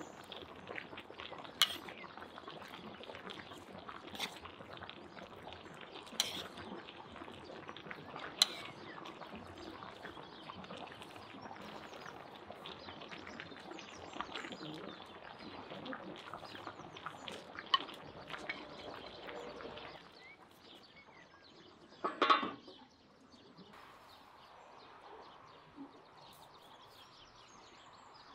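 A pot of stuffed cabbage rolls simmering and steaming, with a metal spoon clicking against the pot a few times as it works over the rolls. About two-thirds through this gives way to quieter outdoor sound, with one short, loud animal call.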